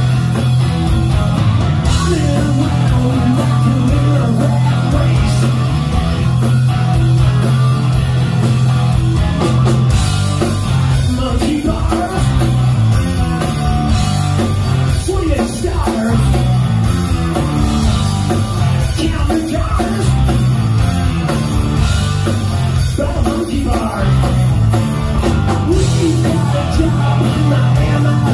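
Live rock band playing loud: electric guitars, electric bass and a drum kit in a steady, driving groove.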